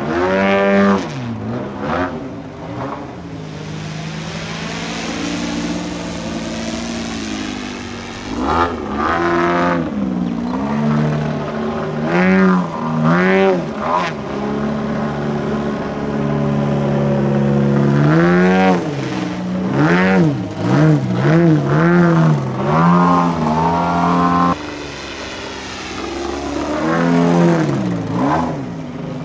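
AJ Laser radio-control aerobatic model plane's engine and propeller running through manoeuvres, the pitch swooping up and down again and again as the throttle and the plane's passes change. The sound drops off sharply about three-quarters of the way through.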